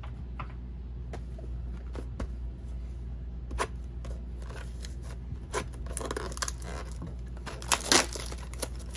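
Trading cards and their packaging being handled: scattered light clicks and rustles, then louder crinkling and tearing of a pack wrapper from about six to eight seconds in.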